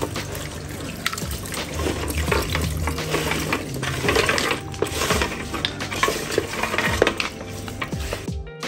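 Hands squeezing and kneading pounded palm nut fibre in hot water in a metal bowl: wet squelching and sloshing of the palm juice, with small clicks of the nuts against the bowl, as the juice is worked out of the chaff.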